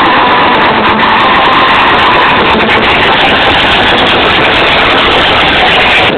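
Competition car-audio system in a Chevrolet Tahoe playing music at extreme volume, so loud that the recording overloads into a dense, distorted wash with little clear tune.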